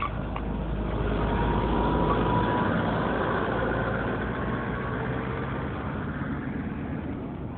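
A motor vehicle's engine running, swelling to its loudest about two seconds in and then slowly fading.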